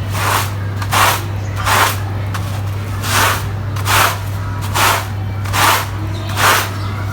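Rhythmic swishing strokes across a wet, soaked rug, about one stroke every 0.8 seconds, over a steady low machine hum.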